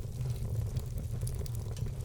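Wood fire burning in a fireplace: a steady low rumble of the flames with a few faint crackles from the logs.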